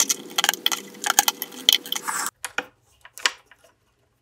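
Small metallic clicks and clinks of wire terminals and connectors being handled and fitted at a motorcycle starter solenoid, quick and many for about two seconds, then only a few scattered ones. A steady low hum underneath stops abruptly about two seconds in.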